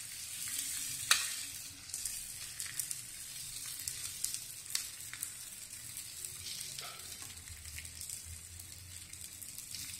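Bread thalipeeth frying in oil on a hot iron tawa: a steady sizzle with scattered crackles and pops, one sharper pop about a second in.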